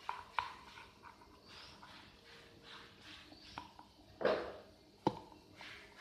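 Slime being stirred with a wooden ice cream stick: faint sticky squelches and light clicks of the stick, with a louder squish about four seconds in and a sharp click just after.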